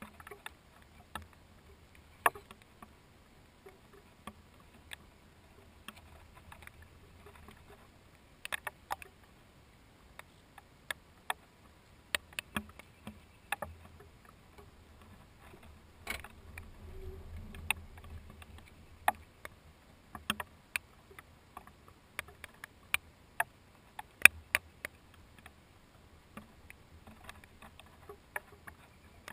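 Scattered raindrops tapping on the GoPro Hero HD's plastic waterproof housing: irregular sharp ticks, one or two a second, some much louder than others. A faint low rumble swells briefly about halfway through.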